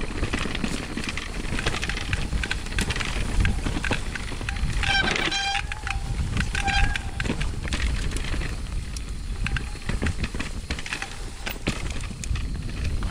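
Orbea Rise mountain bike being ridden over a trail, with tyre rumble, wind on the helmet camera and a steady clatter of small knocks and rattles from the bike. Twice around the middle a short squeal rings out, the first about half a second long.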